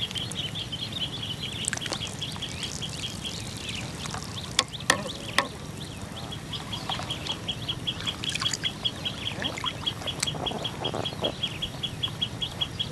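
An animal calling in a rapid run of evenly spaced high chirps at one pitch, about four or five a second; it breaks off for about three seconds midway and then resumes. Three sharp clicks fall in the gap, over a steady low rumble.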